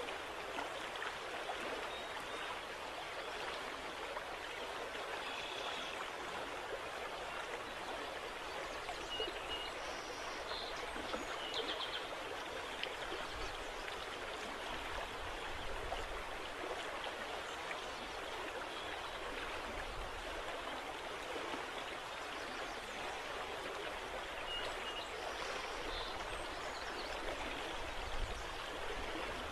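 Steady wash of rippling river water, with a few faint, short high chirps scattered through it and intermittent low wind rumble on the microphone in the second half.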